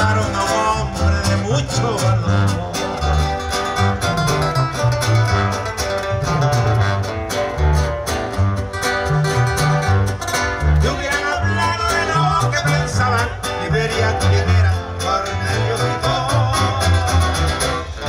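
Live regional Mexican banda music: a sousaphone plays a bouncing line of separate bass notes under guitar, drums and sung vocals.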